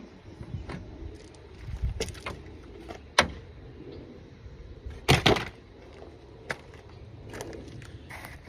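Handling noise around a pickup truck: a few sharp knocks and clicks over light rustling. The loudest comes about three seconds in, and a double knock about five seconds in.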